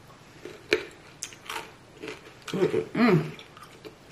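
Mouth chewing a raw carrot stick dipped in ranch, with a few sharp crunches. A short voiced sound with a wavering pitch comes about two and a half seconds in.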